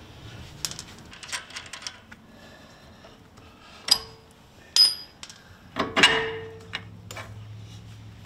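Metal clinks and clanks as a Jeep JL's steering knuckle is worked loose and pulled off its freed tapered ball joint studs: light clicks in the first two seconds, then three sharp clanks with a brief ring at about four, five and six seconds in.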